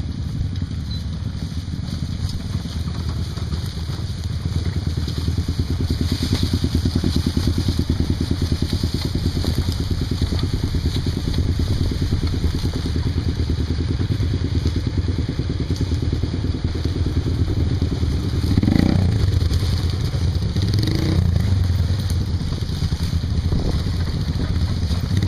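Honda Tornado 250's single-cylinder four-stroke engine running under way on a dirt trail. The engine gets louder about six seconds in and surges again about two-thirds of the way through.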